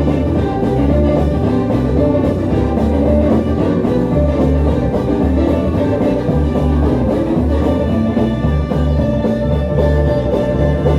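Live gospel band playing instrumental music, with guitar over a steady bass and drum beat.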